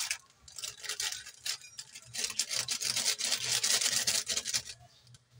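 Crinkling rustle of plastic instant-noodle wrappers and foil seasoning sachets being handled. It comes in two spells, the second and louder one starting about two seconds in.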